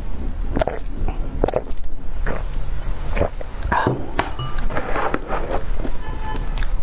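Close-miked eating and drinking sounds: sips and swallows from a glass cup, then mouth sounds of eating cream cake, with short clicks and a spoon working into the cake.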